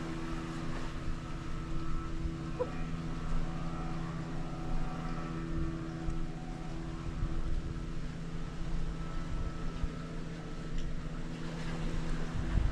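A steady low mechanical hum with a low rumble beneath it, like a motor running.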